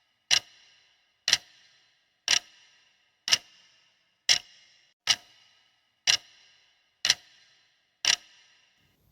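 Quiz countdown timer sound effect: a clock ticking about once a second, nine sharp ticks each with a brief ring.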